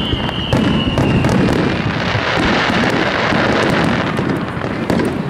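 Aerial fireworks shells launching and bursting in quick succession: booms and sharp cracks with dense crackling in the middle of the barrage. A high whistle falling in pitch fades out about a second in.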